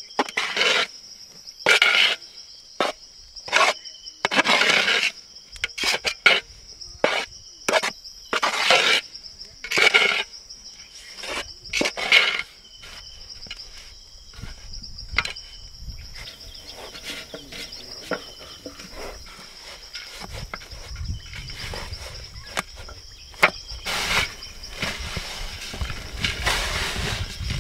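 Hands scooping and rubbing a crumbly besan laddu mixture against the sides of a large metal pot, in short irregular rasps, busiest in the first half. Insects chirr steadily in a high, unbroken tone behind it.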